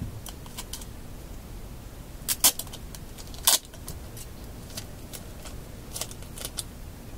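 A roll of tape being handled and peeled: scattered light clicks and crackles, with two louder short rasps about two and a half and three and a half seconds in.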